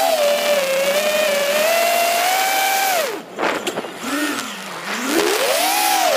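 FPV quadcopter's electric motors and propellers whining, the pitch following the throttle. About three seconds in the whine falls away and goes rough as the throttle drops, then sweeps back up near the end.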